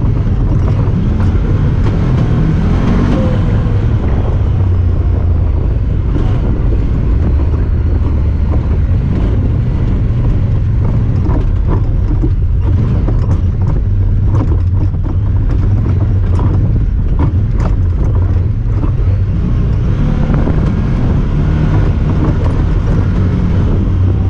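Honda Talon 1000R side-by-side under way, its parallel-twin engine running steadily and low-pitched, with many scattered knocks and rattles. The uploader puts these odd noises down to the camera rattling.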